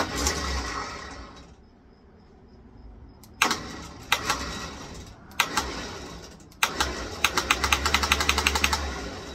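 Electric winch motor run four times in short bursts from a wireless remote, each start sudden. The winch clutch is disengaged, so the motor spins the drum without load. The last and longest run carries a rapid clicking, about ten clicks a second.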